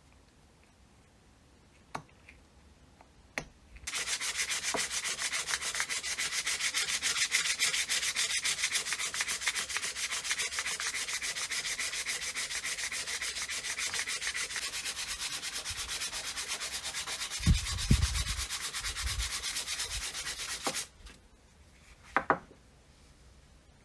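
Sanding during the restoration of an old charcoal iron: a fast, even rubbing that starts about four seconds in and stops abruptly a few seconds before the end. A few light clicks come before it, a few dull low thuds near the end of the sanding, and a couple of clicks after it.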